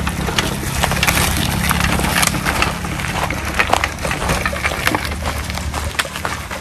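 Mountain bike rolling over a grassy dirt track, its tyres crackling and clicking over twigs and dry ground, over a steady low rumble.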